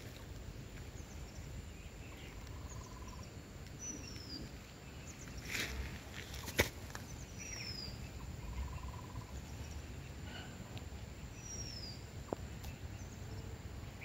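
Outdoor ambience under a steady low rumble. A bird repeats a short, high, falling whistle every few seconds, with a brief lower trill twice. A brief rustle and a sharp click come about six seconds in.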